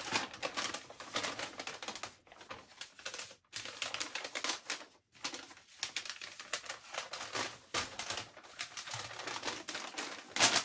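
A large, thin paper instruction leaflet being folded and handled: irregular rustling and crackling of paper, with a few brief pauses.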